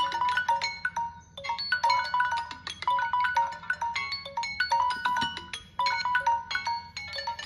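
Timer alarms on five Samsung Galaxy and Tecno smartphones ringing at the same time, the timers having run out: several different melodic chime tones overlapping in repeating note patterns, with a short lull about a second and a half in.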